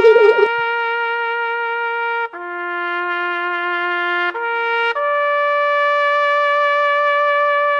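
Music: a trumpet-like brass sound holding long, steady notes. It drops to a lower note a little over two seconds in, returns to the first note, then steps up to a higher note about five seconds in and holds it.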